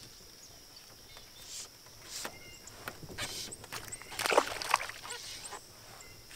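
Small bass splashing at the water's surface and being lifted out beside a canoe, a few short splashes building to the loudest about four seconds in. A steady high insect buzz runs underneath.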